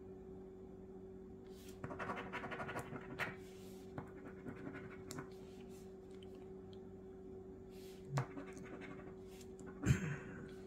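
A coin scratching the latex coating off a paper scratch-off lottery ticket, in quick bursts of strokes that are densest two to three seconds in, with single strokes after. There is a brief knock near the end and a steady low hum throughout.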